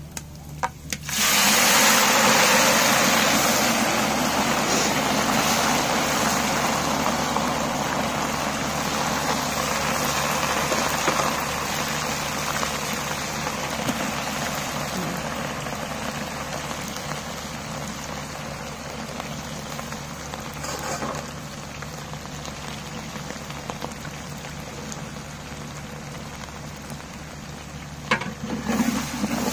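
Hot oil in a cooking pot sizzling loudly as a chopped ingredient mixture with green chillies is tipped in about a second in; the sizzle slowly dies down.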